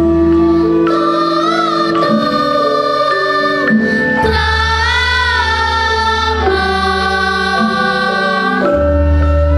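Children's choir of girls singing a Javanese song over instrumental accompaniment with a deep bass, holding long notes with a slight waver.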